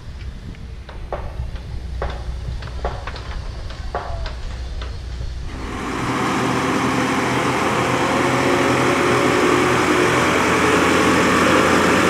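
Low wind rumble on the microphone with a few short clicks. About six seconds in it gives way to the louder, steady running of a JCB telehandler's diesel engine as the machine drives by.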